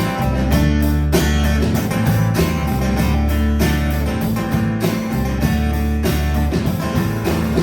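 Live band playing an instrumental break: strummed guitar over a bass guitar and a drum kit keeping a steady beat, with no singing.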